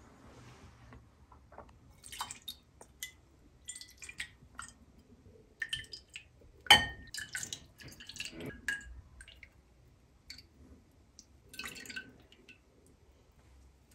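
Metal ladle scooping broth from a metal pot and pouring it into a bowl: liquid splashing and dripping, with sharp clinks of the ladle against pot and bowl, the loudest about seven seconds in.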